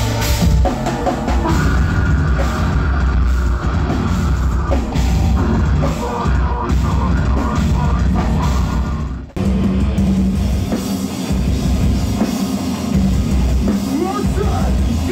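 Metal band playing heavy metal, with drum kit and dense, loud guitars. The sound breaks off for a moment about nine seconds in, then starts again.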